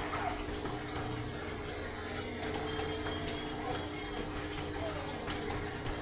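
Steady running-water noise of an aquarium's circulation, a continuous trickle over a low steady hum, with a few faint ticks.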